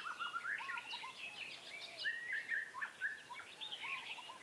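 Several birds chirping and calling together in quick, overlapping short notes, over a faint outdoor hiss.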